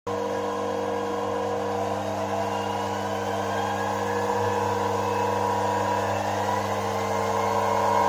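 Belt-driven rig running steadily: an electric drive motor spinning a washing machine universal motor as a generator, giving a constant hum with a faint whine that slowly rises in pitch.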